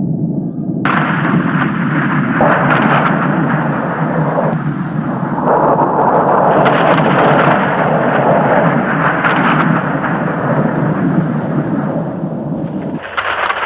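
Loud, continuous storm sound effect: thunder-like rumbling noise with no clear separate blasts, its texture changing about a second in and again near the end.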